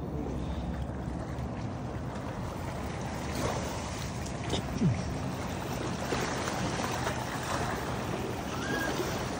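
Lake water lapping and washing against shoreline boulders, a steady rushing sound, with a brief louder sound about five seconds in.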